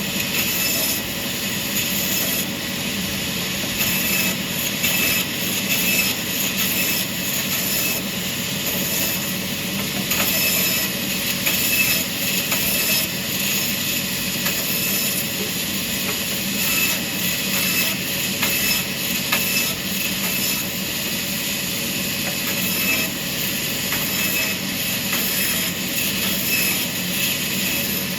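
Sawmill machinery running steadily: a constant mechanical noise with a steady high tone in it.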